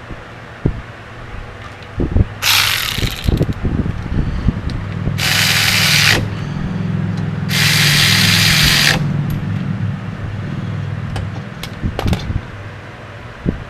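Power tool running in three short bursts of a second or so, with a hiss and a low hum, tightening brake caliper bolts, amid scattered clanks of metal tools.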